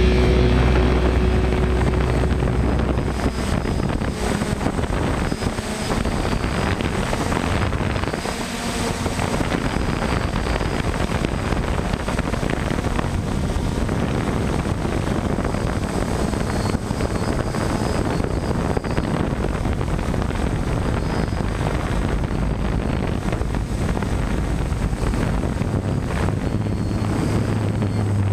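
DJI F550 hexacopter's motors and propellers whirring steadily in flight, with wind noise on the onboard microphone. Music fades out in the first second or two.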